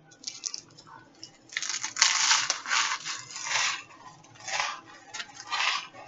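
A mouthful of eight stacked saltine crackers being crunched and chewed: a run of dry, crackly crunches coming in uneven bursts, with a few small crackles before the chewing gets going.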